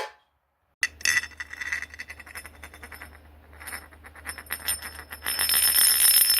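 Metal rattling and jingling with a bright ringing: a sharp strike about a second in, then a rapid run of small metallic clicks that thins out midway and grows denser and louder near the end.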